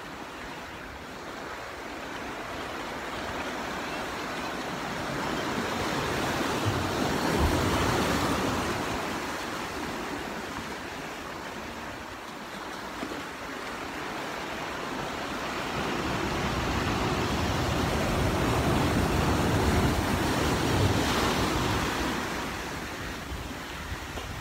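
Sea waves washing in over shoreline rocks, a steady rushing that swells and eases in two long surges, loudest about eight seconds in and again around twenty seconds in.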